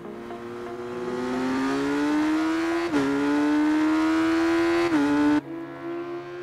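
Kawasaki GPZ900R's inline-four engine accelerating hard, its revs climbing steadily with a quick gear change about three seconds in and another about five seconds in. The sound cuts off abruptly just after the second shift, leaving a quieter steady tone.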